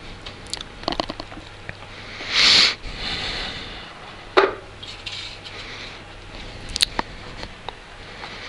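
A cardboard smartphone box being handled on a wooden table: its lid slides off the base with a brief scraping rush about two and a half seconds in, among light taps and knocks as the box and phone tray are moved.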